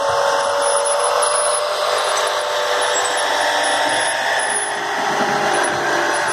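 Small garden-type tractor engine running steadily under load while pulling a plough through the soil, with a steady whine.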